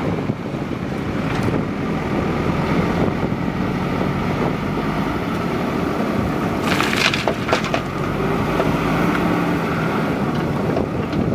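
JCB 3DX backhoe loader's diesel engine running steadily. About seven seconds in comes a loud, crunching, crackling burst lasting under a second.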